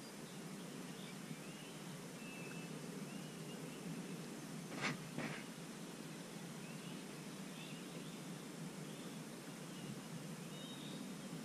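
Quiet riverside ambience with a steady low rumble of open-air noise and faint, scattered bird chirps. Two sharp clicks come close together about five seconds in.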